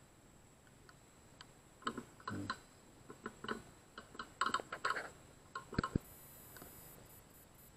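Faint, irregular clicks and ticks coming in small clusters, over a faint steady high-pitched whine.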